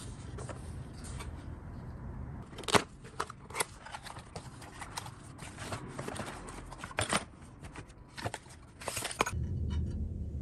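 Cardboard box being opened and a tablet stand's parts pulled out of it by hand: an irregular run of sharp cardboard rustles and clicks, the loudest about three seconds in, giving way to a low rumble near the end.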